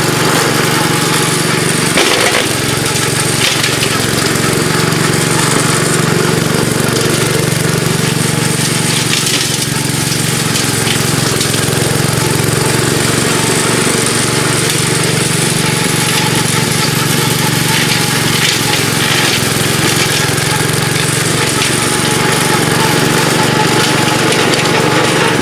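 Gravely Pro 12 walk-behind tractor's engine running steadily under load while its brush-mower deck cuts through brush and vines, with sharp cracks now and then as stems and twigs hit the blade, the loudest about two seconds in.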